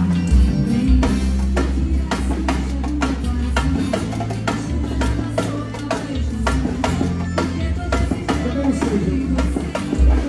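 Live band music with a steady drum-kit beat, heavy bass and electric guitar, and a singer's voice.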